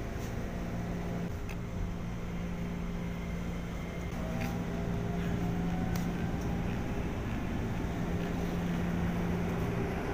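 Inside a moving electric commuter train (JR 205 series EMU): a steady hum and rumble of the running train, with a faint rising whine about halfway through and a few light clicks.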